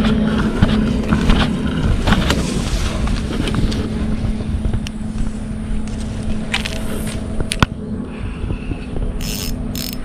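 Leaves and branches rustling and scraping against the body and fishing rod while pushing through dense shrubs, with scattered sharp clicks over a steady low hum.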